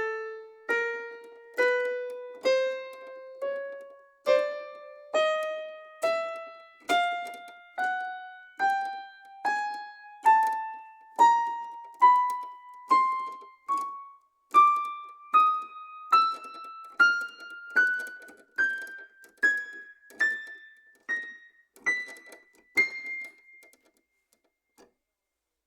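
Stage piano sound playing single notes one at a time, about one a second, climbing step by step in pitch, each note struck and left to decay; the last note sounds a little over three quarters of the way through and rings out.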